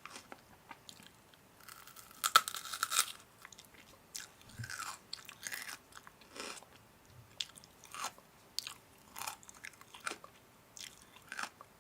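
Crunchy food being bitten and chewed in short irregular crunches, with a denser, louder crackly run about two seconds in.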